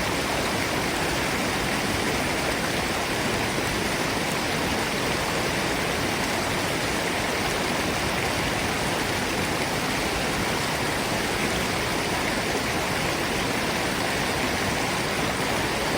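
Steady rush of water from a forest stream and waterfall, an even, unbroken noise.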